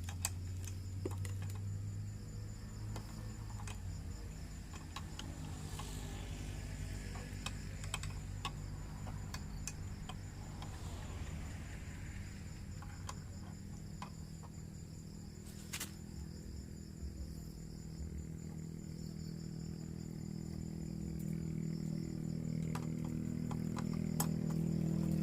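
Crickets chirping over a steady low hum that grows louder near the end, with scattered small clicks.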